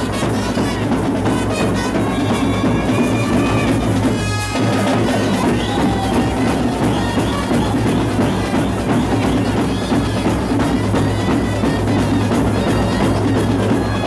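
Live street brass band playing a dance tune: trumpets and a clarinet carrying the melody over steady drumming.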